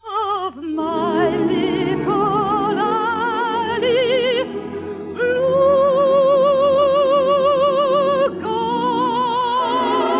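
Operatic-style singing from a musical number, with wide vibrato and orchestral accompaniment. After shorter notes and a brief dip, the voice holds two long notes, changing pitch about eight seconds in.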